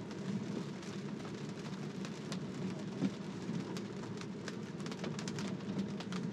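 Rain heard inside a Tesla's cabin while driving on a wet road: many small sharp drop hits on the glass and roof over a steady low road rumble.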